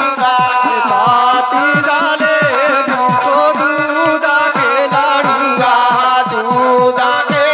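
Live Indian folk music: a held, wavering melody played over a hand drum whose deep strokes bend downward in pitch, about three a second, with a rattling shaken percussion.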